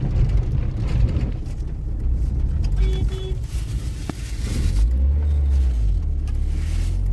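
A motor vehicle's steady low rumble, with a brief tone about three seconds in, a single click a second later, and the rumble deepening near the end.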